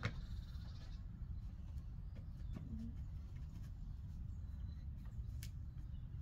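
Quiet outdoor background: a steady low rumble with a few soft clicks, a short low note about two and a half seconds in, and a sharper click about five seconds in.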